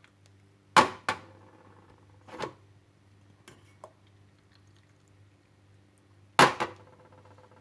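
Kitchenware knocking and clinking as a strainer and pot are handled over a glass: a few sharp taps, two close together about a second in, one more a little later, and another close pair near the end.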